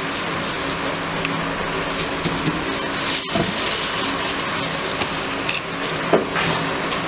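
Steady machine hum under a haze of background noise, with a few light clicks; the sound cuts out for an instant a little past three seconds.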